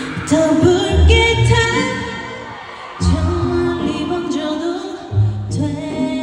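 K-pop song performed live: a woman singing lead over a backing track with a deep, pulsing bass line.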